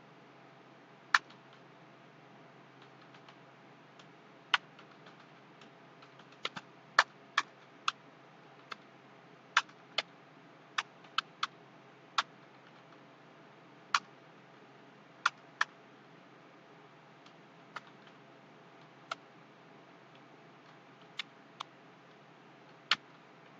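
Computer keyboard keys pressed one at a time at an uneven, slow pace, a sharp click every second or so with short gaps, over a faint steady hiss.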